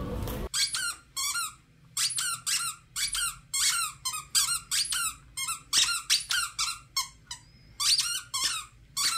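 A dog chewing a big squeaky plush lamb toy, working its squeaker over and over: short, high squeaks, each sliding in pitch, about two a second.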